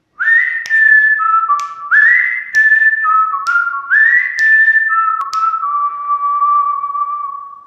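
Whistled intro jingle: a short tune in three phrases, each sliding up to a high note and stepping down, with sharp clicks between the notes. It ends on a long held note that fades away.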